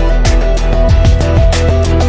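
Upbeat background music with plucked guitar and a steady drum beat.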